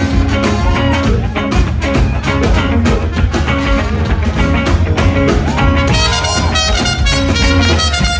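Live funk and brass band playing a driving groove: drums, electric guitar, trombone, trumpets and sousaphone. About six seconds in the horns come to the fore, brighter and more piercing.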